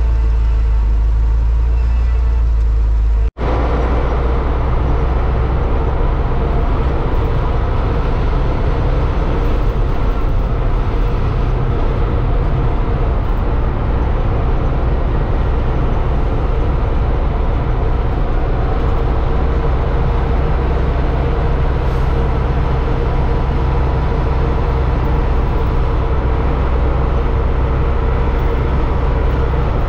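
Tatra 148 truck's air-cooled V8 diesel engine running steadily with a deep, low drone. A little over three seconds in the sound cuts out for an instant, then runs on with a slightly different tone.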